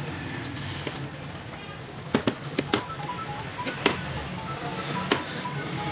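A few sharp clicks and knocks from the metal parts of a disassembled angle grinder being handled, over steady low background noise.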